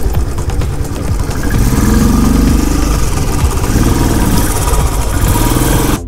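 Motorcycle engine running under way, its pitch rising and falling twice as the throttle opens and closes.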